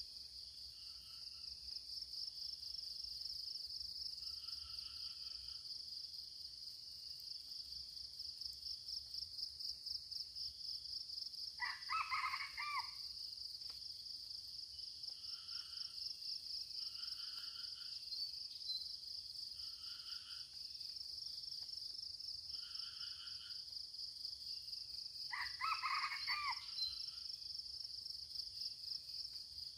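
Red junglefowl crowing twice, each crow short and about a second long, some thirteen seconds apart, over a steady pulsing drone of insects. Softer short bird calls come in between.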